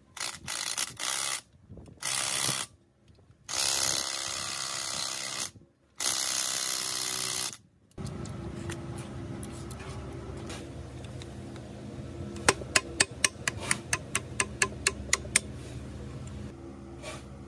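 Compressed-air blow gun firing in short blasts of hiss, each starting and stopping sharply, to blow out an engine's connecting rod and piston. About halfway through the blasts give way to a quieter steady hum, with a quick run of light metallic clicks near the end.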